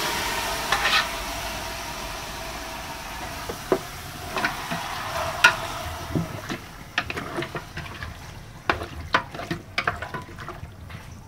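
Duck pieces sizzling in a hot metal pot as they are stir-fried, with a utensil clicking and scraping against the pot. The sizzle dies down over the first half while the clinks of stirring become more frequent near the end.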